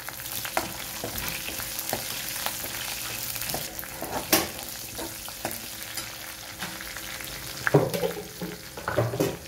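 Green chillies and garlic sizzling in hot oil in a metal kadhai, a steady hiss, while a metal ladle stirs and scrapes the pan with scattered clicks. There is a sharp knock about four seconds in and louder clattering near the end.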